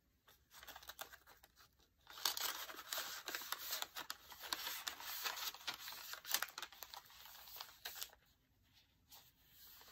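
Paper rustling and sliding as a handmade paper journal is handled: a card is slid into a page pocket and a page is turned. The rustling is heaviest from about two seconds in and eases off near the end.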